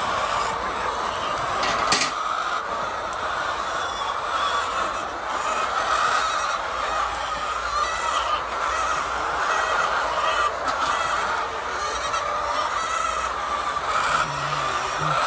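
Steady din of a large flock of chickens, many hens clucking and calling at once. A single sharp click stands out about two seconds in.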